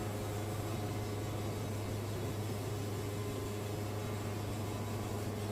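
Wood-Mizer portable sawmill running with a steady low hum over an even rushing noise.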